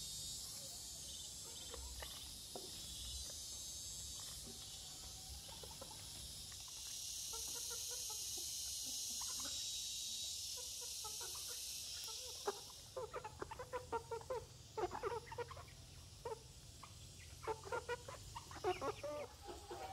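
Steady high buzzing of insects, louder in the middle, that fades out about two-thirds of the way through. A run of short animal calls in quick clusters follows.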